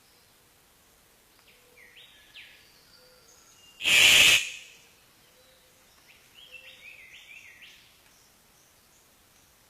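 Birds calling in two bouts of short sweeping calls, with one loud, harsh half-second burst about four seconds in.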